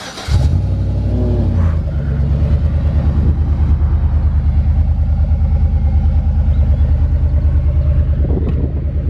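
Pickup truck engine starting about a third of a second in, revving up briefly, then settling into an idle with a steady, evenly pulsing low rumble.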